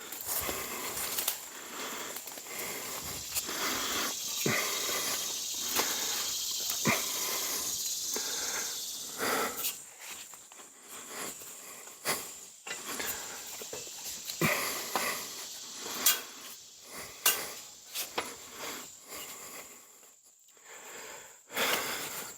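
Hard, wheezing breathing of a man climbing a metal ladder deer stand, with the ladder giving sharp metallic taps and knocks every few seconds. The breathing is steadiest and loudest in the first half.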